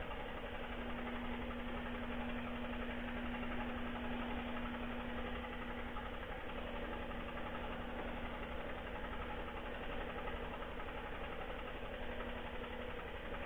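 Klotok river boat's engine running steadily, a constant hum with one unchanging tone.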